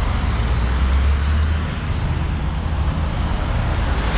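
Steady low vehicle and road-traffic rumble with a constant hiss of road noise.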